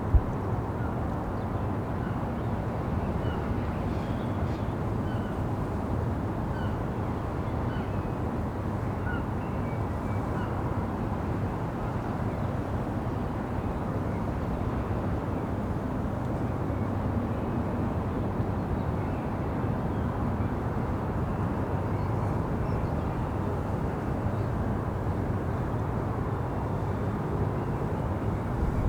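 City ambience from a rooftop: a steady rumble of distant traffic, with small birds chirping over it during the first ten seconds or so.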